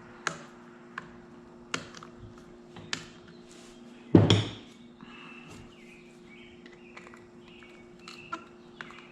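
Small metal tool clicking, tapping and scraping against a two-stroke piston while working the wrist-pin circlip out. Several sharp clicks, with the loudest knock about four seconds in, and brief squeaks of metal on metal later, over a faint steady hum.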